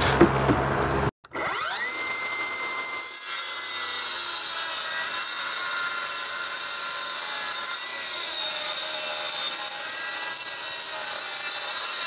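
Cordless circular saw spinning up with a rising whine about a second in, then making one long, steady rip cut through a plywood formwork sheet, trimming 100 mm off its width.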